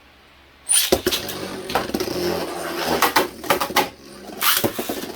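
Beyblade tops launched into a plastic stadium about a second in with a quick whirring zip from the launcher, then spinning and clashing, with a steady spinning whir broken by many sharp clacks of the tops hitting each other.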